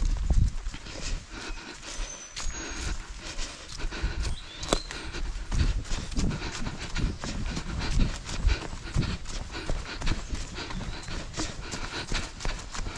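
Footfalls of a trail runner running on a trail, with hard panting breath.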